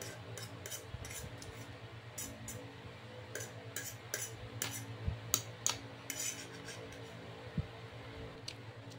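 Metal fork clicking and scraping on a plate as noodles are picked up and eaten, with chewing; the sharpest clicks come a little past halfway. A steady low hum runs underneath.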